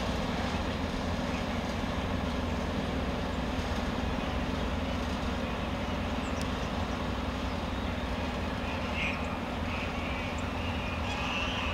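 Slow-moving diesel-hauled freight train rolling away along a platform: a steady rumble of the engine and wheels. Short high-pitched squeals come about nine seconds in and again near the end.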